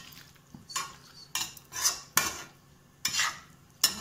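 Metal spoon scraping along a metal kadhai while stirring mushroom and potato sabji in gravy: about six short, irregular scrapes.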